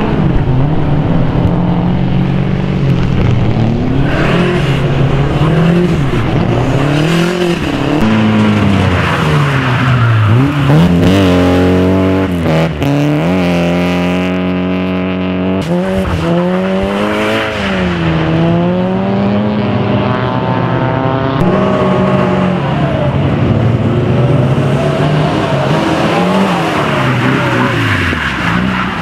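Nissan 240SX (S14) drift car engines revving hard through slides on a wet track: the engine pitch climbs and drops again and again, every few seconds, as the throttle is worked through each drift. Tyre noise runs beneath it throughout.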